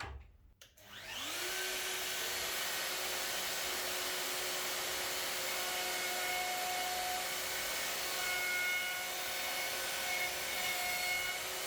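Festool router switched on with a click, spinning up with a rising whine over about a second, then running steadily while its 13 mm cutter routes a butt-hinge recess through a template jig, with dust extraction drawing air through the jig.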